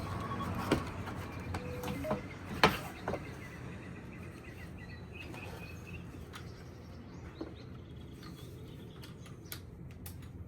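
A few sharp clicks and knocks in the first three seconds, the loudest about two and a half seconds in, from hand work on the plastic front trim panel, then scattered light ticks. Faint bird chirps in the background, over a low steady hum.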